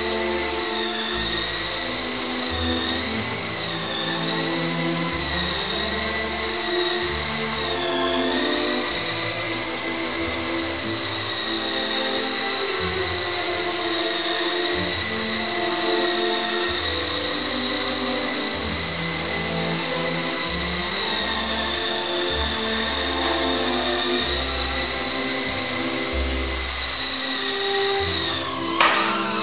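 E-flite Blade CX2 coaxial micro RC helicopter hovering: the high whine of its electric motors and rotors, wavering up and down in pitch, with a sharp dip and recovery near the end. Background music plays underneath.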